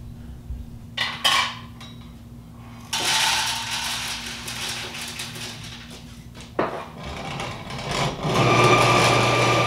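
Dried hominy kernels poured into the metal hopper of a hand-cranked grain mill, rattling, then near the end the mill starts grinding them into cornmeal with a loud, steady grinding noise. A couple of clunks sound about a second in.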